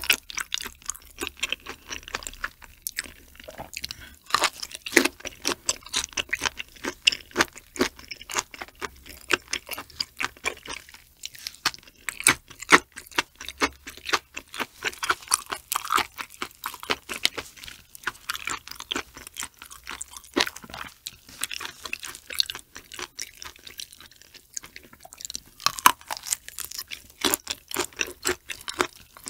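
Close-miked chewing of raw shrimp sashimi coated in flying fish roe, heard as a dense run of quick wet clicks and crunches.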